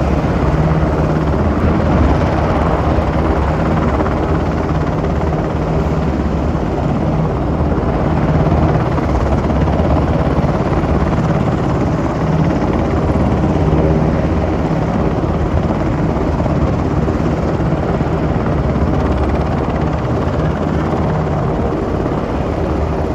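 Helicopter running on the ground with its rotor turning before take-off: a loud, steady drone with a low pulsing beat.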